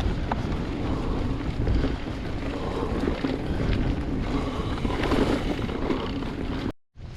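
Wind buffeting the microphone over a steady rumble and rattle of a mountain bike rolling along a trail, cutting off abruptly near the end.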